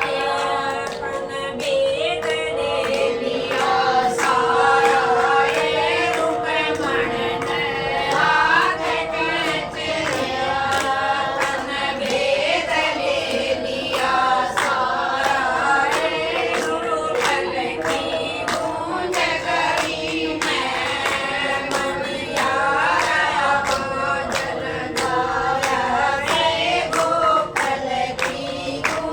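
Group of voices singing a Haryanvi folk song together, with sharp rhythmic beats that run under the singing. A steady held note sounds beneath the voices for the first third.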